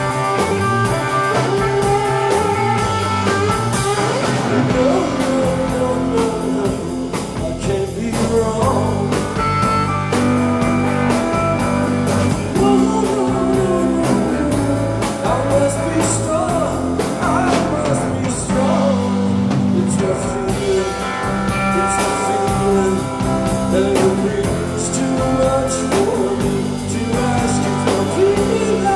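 Live rock band playing a song: a singer over electric guitar, bass and drums, with a steady beat.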